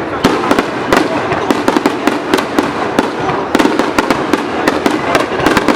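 Fireworks going off in quick succession: many sharp bangs and cracks, several a second and irregular, over a steady background rumble and hiss.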